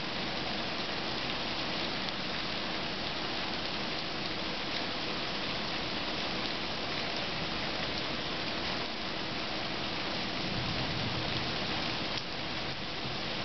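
Heavy rain falling steadily in a thunderstorm, a constant hiss of drops on surfaces. A low rumble swells briefly near the end.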